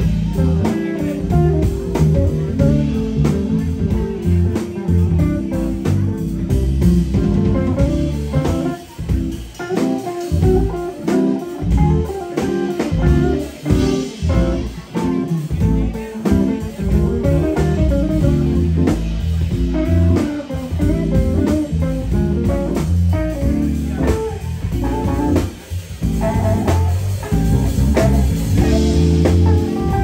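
Live band groove: a semi-hollow electric guitar plays a melodic lead line over electric bass and drum kit.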